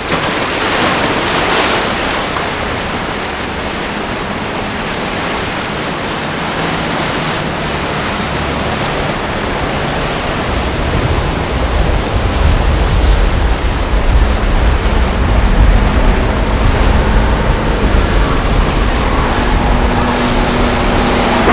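Express cruiser running at speed through choppy inlet water: a steady rush of hull wash and breaking wake with a faint engine drone. Wind buffets the microphone, with a heavy low rumble from about halfway that makes it louder.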